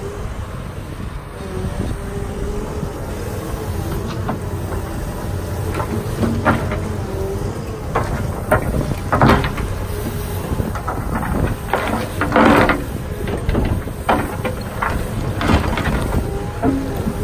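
Volvo EWR150E wheeled excavator's diesel engine running under load, its note wavering up and down as the hydraulics work the bucket, with several scrapes and clunks of the steel bucket digging into dirt and stones, the loudest about twelve seconds in.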